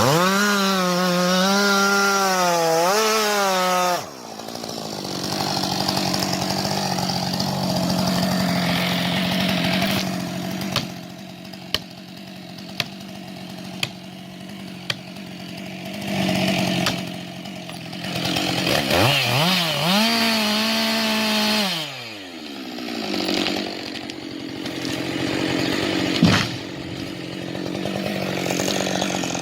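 Chainsaw running at high revs and cutting into a tree, its pitch wavering under load. It drops to a rougher, lower sound for a long stretch, with a few sharp snaps about halfway through, then revs up again and winds down.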